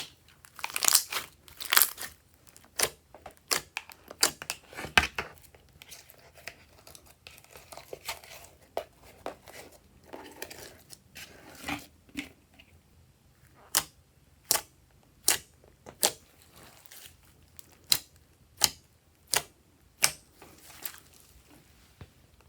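Slime being squeezed and pressed by hand, giving sticky crackles and sharp pops. In the second half these settle into single clicking pops about every three-quarters of a second.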